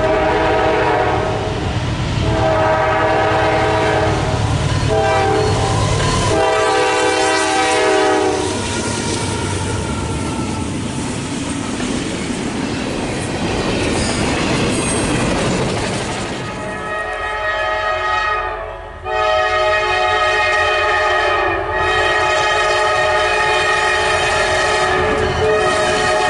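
Diesel freight locomotive air horn sounding the long-long-short-long grade-crossing signal, then the rumble and wheel clatter of a double-stack container train passing close by. From about two-thirds of the way in, a locomotive horn blows long again, with two brief breaks.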